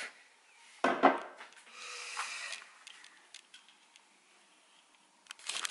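Camera being handled and rubbed, with a short sharp sound about a second in, a brief hiss just after, then a few faint scattered clicks.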